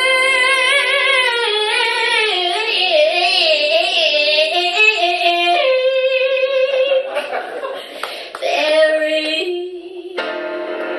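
Women singing live into microphones. A held note gives way to a run of wavering, ornamented notes in the middle, then longer sustained notes, with a brief break near the end.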